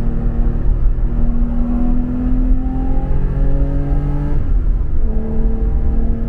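Car engine heard from inside the car on a track lap, pulling with its pitch rising. About four seconds in the note breaks and drops at a gear change, then pulls again, over heavy low wind and road rumble.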